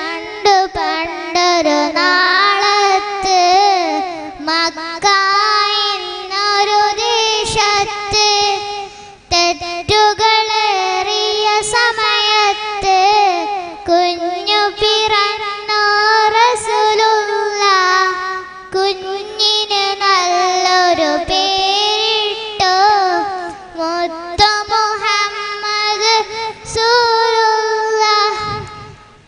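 A young girl singing solo into a handheld microphone. The melody runs in long phrases with wavering, ornamented pitch and short breaks between lines.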